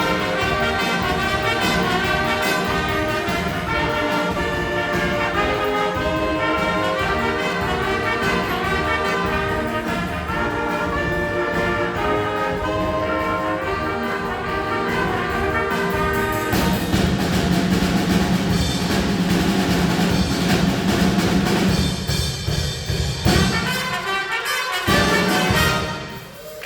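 Brass band music with trumpets and trombones playing together over a steady beat, settling onto a long held low note about two-thirds of the way through, then breaking off near the end.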